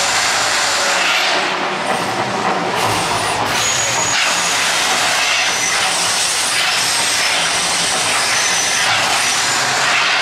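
The Mirage volcano attraction erupting: its gas fire jets and water fountains make a loud, continuous rushing hiss that swells a few seconds in.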